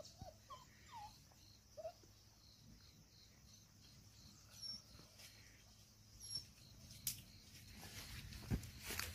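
Young hunting-dog puppies whimpering faintly, a few short rising-and-falling whines in the first two seconds. Later comes light rustling and footfalls in dry leaf litter, with a sharp snap just after the middle and busier scuffling near the end.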